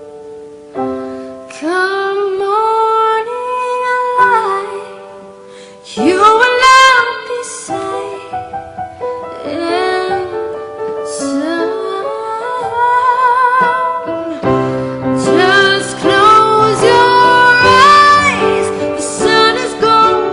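A song with a singing voice over sustained instrumental accompaniment, the voice holding long, wavering notes. About fourteen seconds in, a deeper, fuller backing layer comes in.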